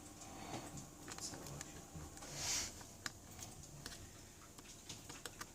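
Faint scattered small clicks and ticks, with a brief soft hiss about two and a half seconds in.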